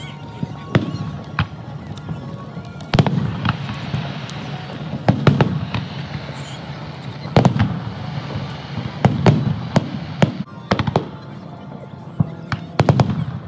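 Aerial firework shells bursting overhead: a dozen or more sharp bangs at uneven intervals, some in quick pairs, each trailing off in echo.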